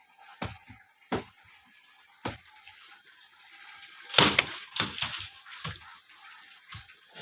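Irregular sharp knocks from coconut tree cutting work, with a louder crash and rustle about four seconds in.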